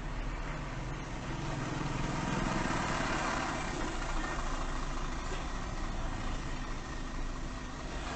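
Car engines idling in stopped traffic, heard from inside a car through its dash cam, as a steady hum. A passing car swells and fades about two to four seconds in.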